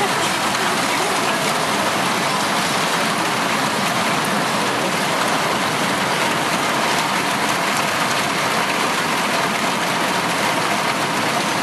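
Heavy downpour during a thunderstorm: rain pouring steadily in a dense, even hiss.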